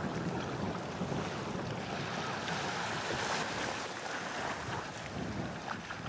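Shallow seawater washing and splashing at a sandy beach's edge, with wind on the microphone.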